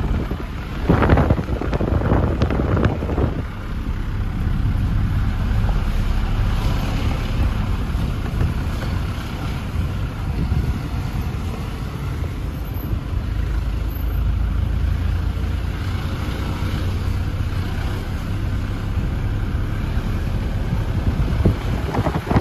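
Wind buffeting the phone's microphone: a steady, loud low rumble, with a few sharper gusts or rustles in the first few seconds.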